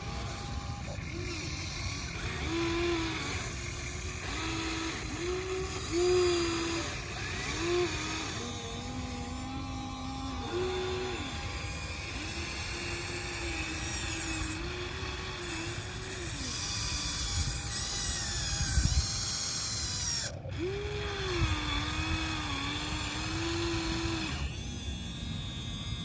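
Electric motors of a Huina RC excavator whining in short runs of a second or two, rising and falling in pitch as the boom, arm and bucket are worked.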